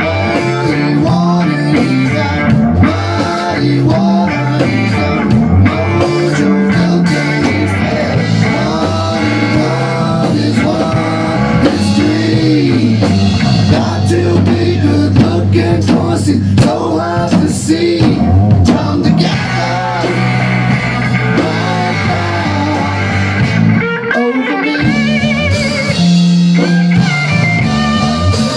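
A rock band playing live: electric bass, electric guitar and drum kit together. The bass drops out for a couple of seconds about three-quarters of the way through, then comes back in.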